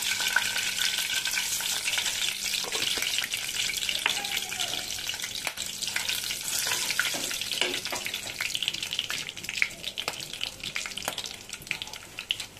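Whole spices (bay leaves, cinnamon, cardamom, cloves) sizzling and crackling in hot oil in a nonstick pan while a wooden spatula stirs them; the sizzle eases off near the end.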